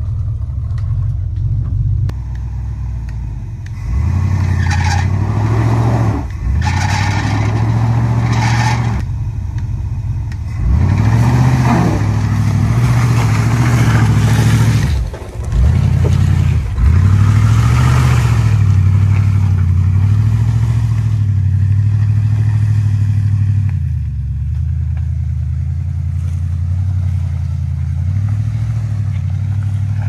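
Ford Bronco's engine pulling the truck off-road, its pitch rising and falling as the throttle is opened and eased, with several brief lifts off the throttle. Louder stretches of rushing noise come and go over the engine.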